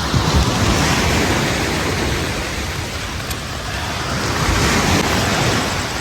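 Surf breaking on a beach, the wash swelling twice: just after the start and again about five seconds in. Wind buffets the microphone.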